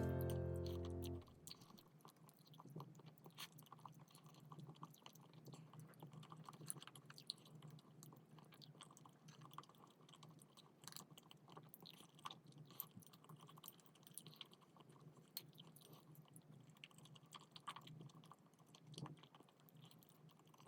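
Soft, close-up chewing with small wet mouth clicks and smacks at an uneven pace. Background music cuts out about a second in.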